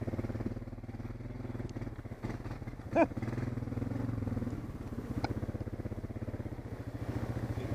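ATV engine running at low speed with an even, rapid throb while the quad rolls slowly. A short, sharp pitched sound cuts in briefly about three seconds in.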